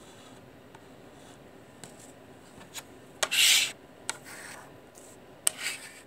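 A memory module's circuit board scraping against a table top: one loud rasping scrape about three seconds in, a weaker one just after, and a few sharp clicks and taps.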